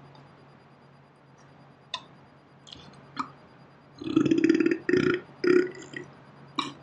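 A man burping: a longer burp about four seconds in, then two short ones, with a few faint clicks before them.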